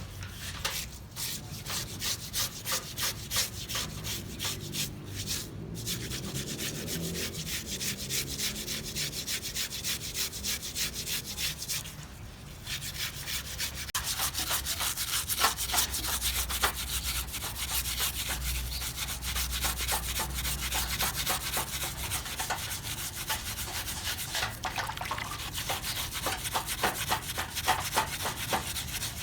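Rapid, repeated scraping strokes over the rough skin of a shark being cleaned, with a short pause about twelve seconds in.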